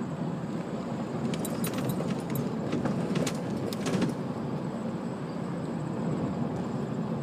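Car driving along, with steady road and engine noise heard from inside the cabin, and a few light clicks between about one and four seconds in.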